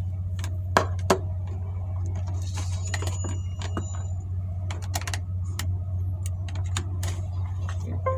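Irregular small clicks and taps of a plastic USB GPS receiver puck and its cable being handled, the loudest about a second in, over a steady low hum.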